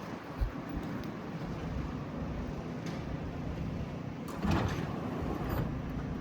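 New York subway train at the station platform: a steady mechanical hum, with a short thump about half a second in and a louder rushing burst about four and a half seconds in, along with a sliding-door sound.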